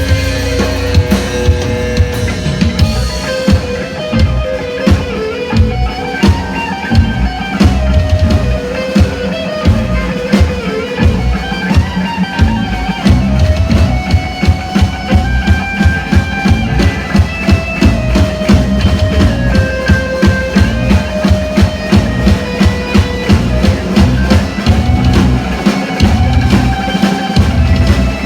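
Live band playing: a drum kit keeping a steady, driving kick-drum beat under sustained melodic lines.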